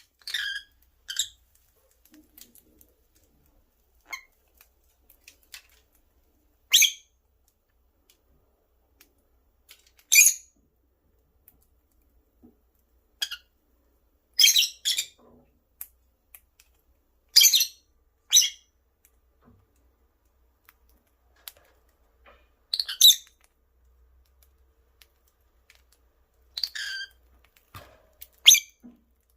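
Lovebirds giving short, sharp, high-pitched chirps every few seconds, some in quick pairs, with faint small clicks between the calls.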